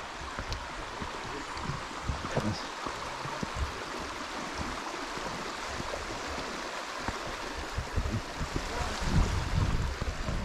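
Shallow stream running over a stony bed, a steady rushing hiss, with irregular low thumps that come more often near the end.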